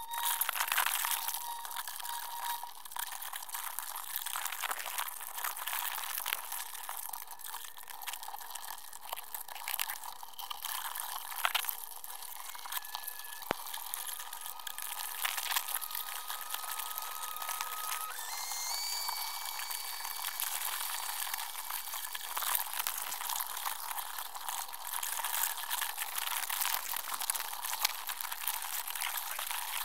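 Underwater sound inside a crab pot, played back 20 times fast: a dense, high-pitched crackle and hiss as Dungeness crabs scrabble over the pot mesh and the camera housing. A few thin steady tones come and go through it.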